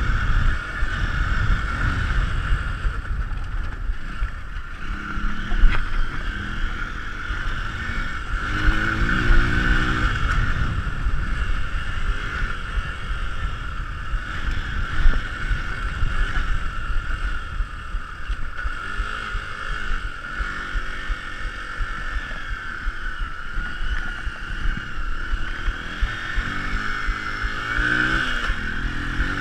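Hero Impulse's 150 cc single-cylinder four-stroke engine pulling hard on a dirt track, its revs rising and falling several times with throttle and gear changes over a constant low rumble. There are a couple of sharp knocks, about six seconds in and again around fifteen seconds.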